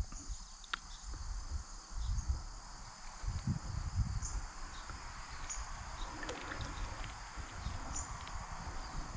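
Water sloshing in irregular low bursts, heaviest in the first four seconds, over a steady high drone of insects with a few short chirps.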